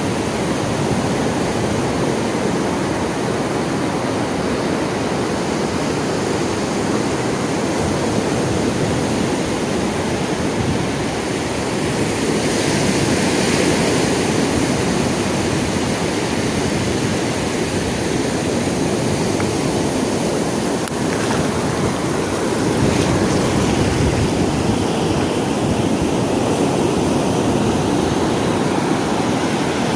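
Sea waves breaking and washing on a shore in a steady rush, with one wave surging louder and hissier about halfway through.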